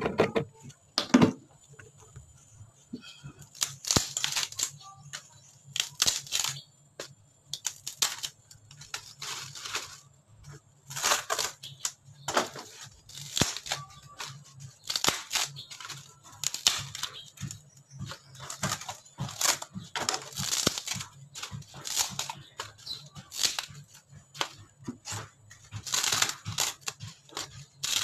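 Old wooden ceiling strips being torn and split apart by hand: a string of short cracking, tearing sounds every second or two as the thin wood layers peel and break.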